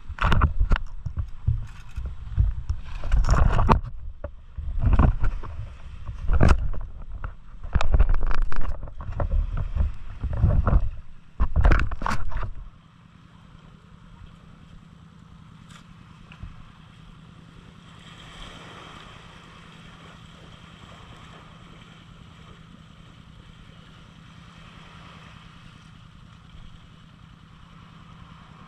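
Loud, irregular rumbling gusts and knocks on the camera's microphone, wind buffeting and handling as the camera is set down, cutting off suddenly about twelve seconds in. After that a steady low hum and a soft wash of small waves on the shore.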